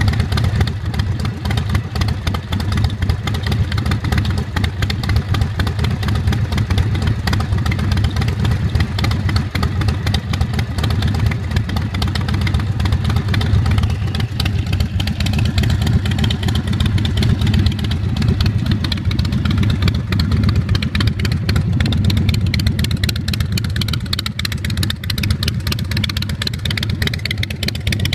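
Carbureted 111 cubic inch S&S V-twin engine of a chopper idling steadily through a Vance & Hines exhaust, with a deep, even rumble.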